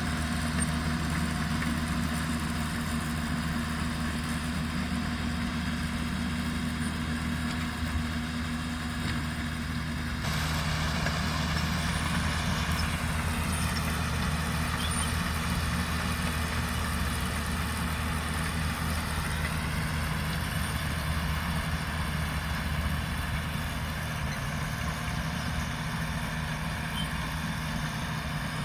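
Heavy diesel engines of an excavator and a dump truck running steadily at a working site. The tone shifts about ten seconds in, followed by a slow rise and fall in pitch.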